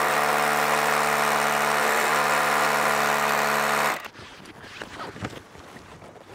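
Milwaukee cordless drill boring a pilot hole into a stone wall. It runs steadily for about four seconds and then stops suddenly.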